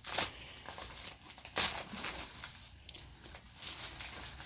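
Paper wrapping on a present crinkling and tearing as it is unwrapped by hand, in irregular rustles with two sharper rips, one right at the start and one about a second and a half in.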